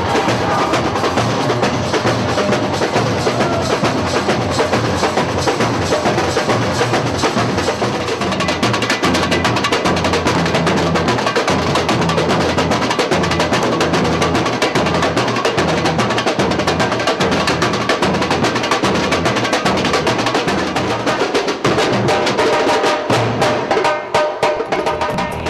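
Live samba percussion playing a fast, dense groove of drums with sharp, high, woodblock-like strokes.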